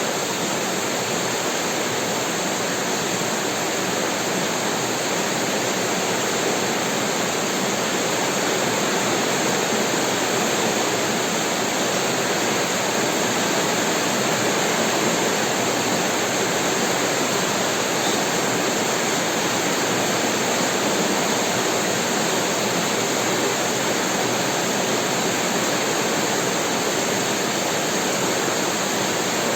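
Heavy rain falling steadily, a dense, even sound without breaks or thunder.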